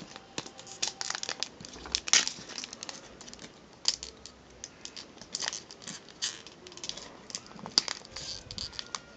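Foil wrapper of a Pokémon card booster pack crinkling and tearing as fingers pick open its crimped top seal, in irregular crackles with a louder one about two seconds in.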